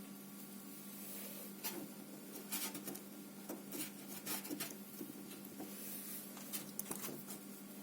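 Slime being pressed and stretched by hand, giving irregular small sticky clicks and pops, over a faint steady hum.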